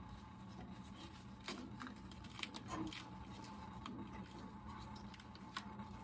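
Faint rustling and scraping of a cardboard-framed pleated air filter being slid into a fan coil unit's metal filter rack, with a few light clicks and knocks, over a steady low hum.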